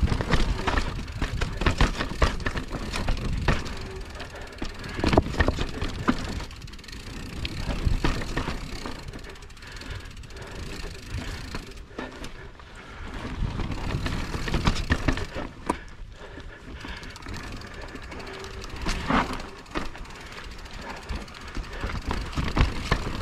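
Mountain bike ridden over a rough, technical trail: tyre noise over rocks and roots, with frequent irregular knocks and rattles from the bike.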